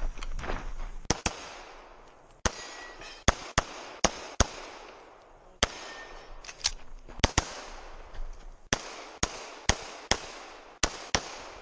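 Rapid pistol fire from a Sig Sauer 1911 MAX in .40 S&W loaded to major power factor: about eighteen shots, mostly in quick pairs, each with a short echo.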